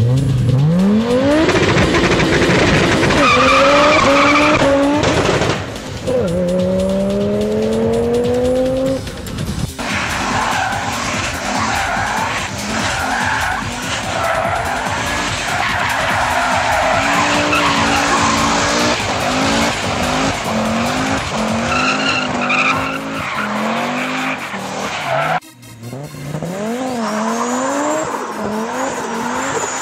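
Turbocharged Audi quattro five-cylinder engines revving hard in burnouts. The engine note climbs in long rising sweeps under full throttle, then is blipped up and down in quick repeated revs, over the hiss and squeal of spinning tyres.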